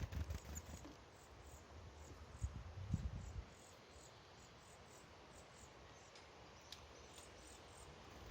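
Faint high chirps repeating evenly about two to three times a second, with a few low rumbles about a second in and again around three seconds in.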